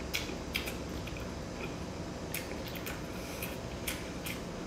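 A person chewing a mouthful of food with lips closed, close to the microphone: irregular wet mouth clicks over a steady background hiss.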